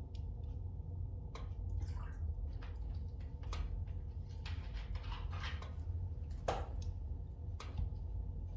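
Spruce logs burning in an open fireplace, crackling and popping irregularly over a low steady rumble of the flames, with a few brief hisses. One louder pop comes about six and a half seconds in.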